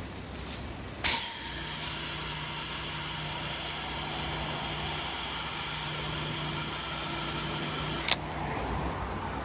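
Pressure washer spraying: about a second in the wand's trigger is squeezed and the high-pressure water jet gives a loud, steady hiss over the 8 gallon-per-minute machine's engine running under load, then it cuts off suddenly about a second before the end as the trigger is released.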